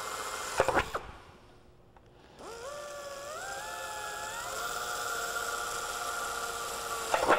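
Pneumatic drill with a 3/32-inch bit drilling pilot holes through aluminum aircraft skin. Its whine stops about a second in, after a couple of short knocks. It starts again about two and a half seconds in, climbing in pitch as it spins up, then holds steady until a short clatter near the end.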